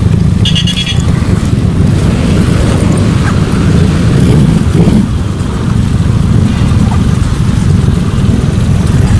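Motor scooter engine idling as a steady low rumble, with street noise around it. A short high beep sounds about half a second in.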